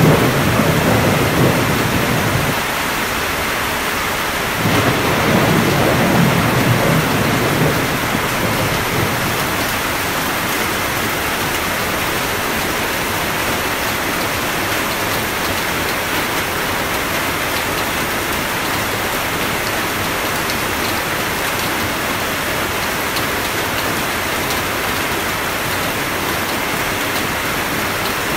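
Steady heavy rain with rolling thunder. One low rumble dies away about two and a half seconds in, and another rolls in near five seconds and fades by about nine seconds, leaving only the rain's hiss.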